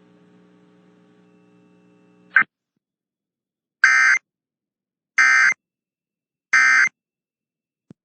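Emergency Alert System end-of-message (EOM) data header: three short, identical bursts of shrill digital chirping, a little over a second apart, marking the end of the alert message. They come after a faint hum and a single short blip.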